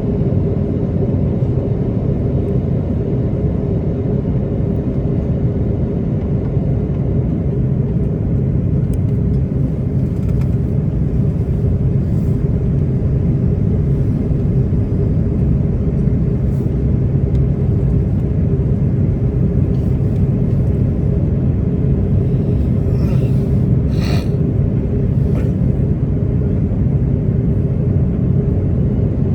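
Steady cabin noise inside an Airbus A330-300 on approach: a constant low rumble of engines and airflow with a steady hum. A few faint clicks or rattles come in the second half, most of them a few seconds before the end.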